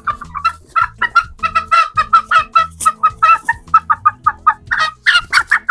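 Young chicken clucking in a fast run of short calls, about five a second, loudest near the end.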